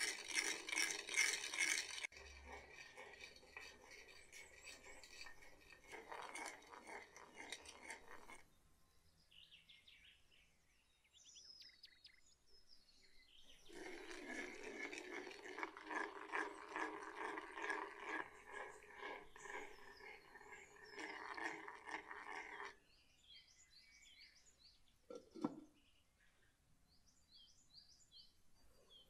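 A spoon stirring and scraping round the inside of a clay bowl in quick, rhythmic strokes, in two bouts with a pause between; in the second bout it stirs fine dry granules. Birds chirp in the pause and near the end, and a single knock comes a few seconds before the end.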